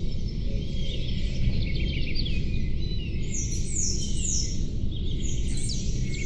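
Several small songbirds chirping and twittering, with quick rapid notes and repeated falling whistled sweeps, over a steady low rushing noise.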